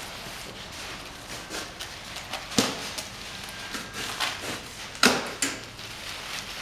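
Plastic packaging crinkling and rustling as it is cut open with a knife and unwrapped on a stainless-steel table, with a few sharp knocks of things set down on the steel top, the loudest about two and a half and five seconds in.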